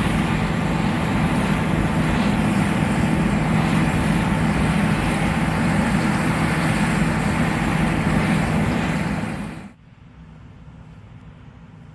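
John Deere S780 combine running steadily, a loud even machine noise with a low hum. About ten seconds in it cuts off suddenly, leaving only a faint steady hum.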